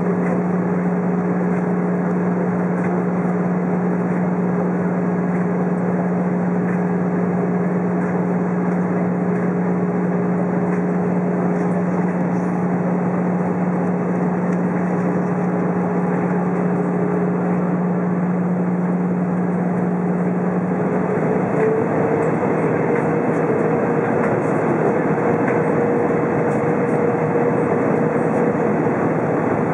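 Steady cabin noise of an Airbus A320 on its descent: engine hum over rushing airflow, heard from a window seat over the wing. About two-thirds of the way through, the engine hum shifts slightly higher in pitch.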